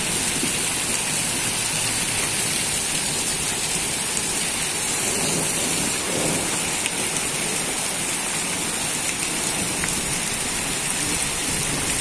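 Heavy rain pouring onto concrete pavement: a dense, steady hiss with a few sharper drop taps.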